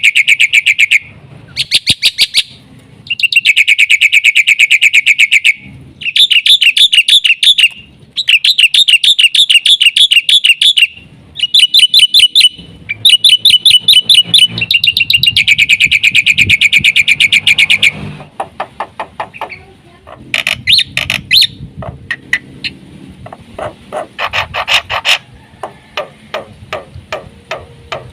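Black-winged myna (jalak putih) singing loudly: runs of very fast repeated, rattling notes lasting a few seconds each, broken by short pauses. About 18 seconds in, the song changes to a sparser string of sharp chattering notes, lower in pitch. The song is a stream of mimicked phrases.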